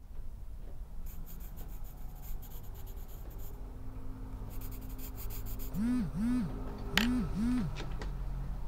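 Coloured pencil scratching across paper in quick shading strokes. From about six seconds in, a mobile phone starts to ring with repeating pairs of short rising-and-falling tones, and there is a single sharp click about a second later.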